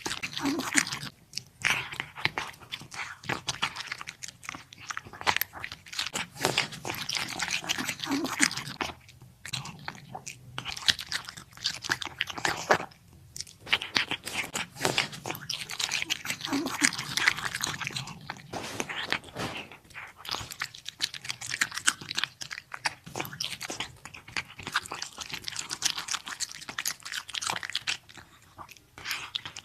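Ragdoll cat chewing and crunching through small birds, a long run of wet, irregular crunches and bites with a few brief pauses.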